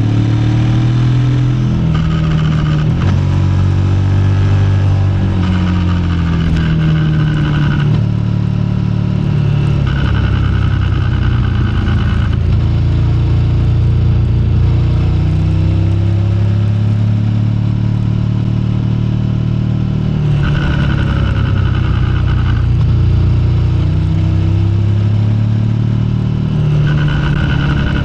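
KTM 1390 Super Adventure S Evo's V-twin engine running under way, its pitch rising and falling with speed and gear changes. A higher whine-like band comes and goes every few seconds; the noise was traced to a loose drive chain.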